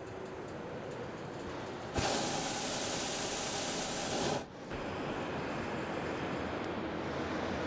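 Hot air balloon's propane burner firing in one loud, hissing blast of about two and a half seconds, starting and stopping abruptly, over a steady background rush.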